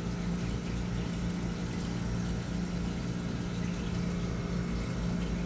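Steady low mechanical hum with one constant tone over a low rumble.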